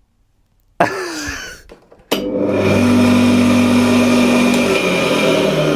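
Repaired electric wood chipper's motor switched on: a brief start that winds down with a falling pitch, then about two seconds in it starts again and runs steadily. It now runs without blowing the fuses.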